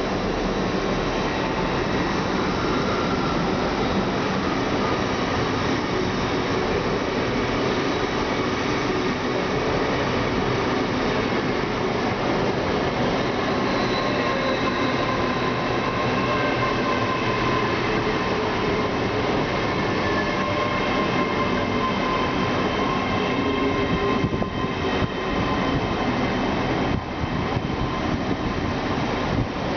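Passenger train running through the station, a steady rumble with faint high-pitched tones drawn out over it, carrying on throughout.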